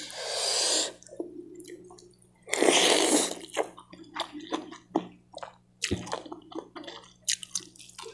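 Saucy fried noodles (mie goreng nyemek) slurped up off a fork twice, once at the start and again about two and a half seconds in, each slurp lasting about a second. Between the slurps come chewing and small clicks of a fork and spoon against the plate.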